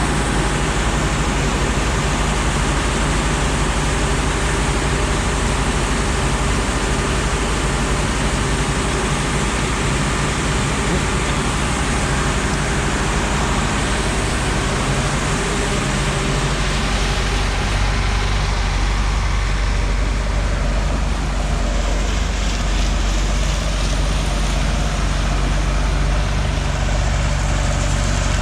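Heavy farm-machine engine running steadily, with a low hum and a noisy wash above it; the low rumble grows heavier about two-thirds of the way through.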